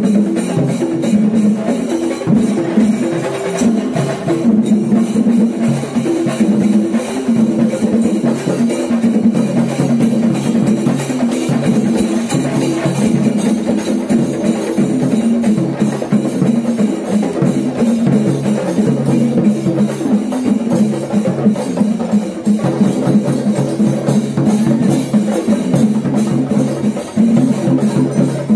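Drum-led percussion music: fast, dense drumming and clacking strokes over steady low pitched notes, running continuously at a steady loudness.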